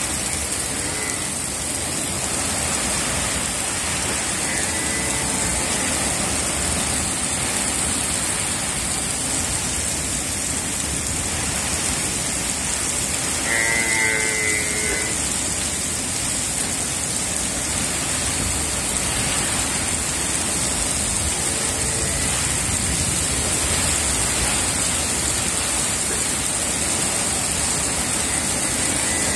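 Heavy rain pouring steadily onto open ground, a dense, even hiss. A brief pitched call sounds over it about halfway through, with fainter ones around a sixth and three-quarters of the way in.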